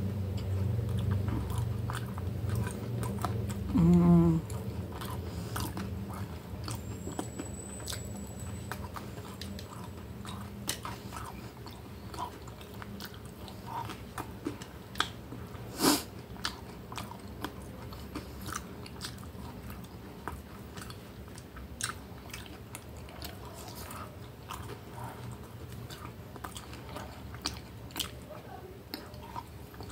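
Close-up chewing and biting of French fries eaten by hand, with many small wet mouth clicks and smacks. A brief voiced sound about four seconds in, and one sharp click near the middle.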